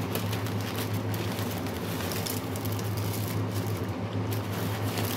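Chicken stew in tomato sauce simmering in a pot, bubbling and popping in quick irregular crackles over a steady low hum.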